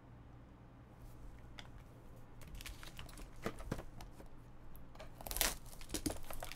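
Handling of a small cardboard trading-card box while a utility knife slices through its seal: scattered clicks, scrapes and rustles that start faint and grow louder, with the loudest cuts in the last second and a half.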